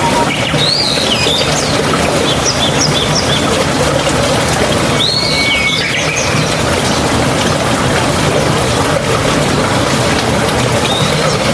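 Steady rushing water with birds chirping over it in short bursts of song: about a second in, around two to three seconds, around five seconds, and again near the end.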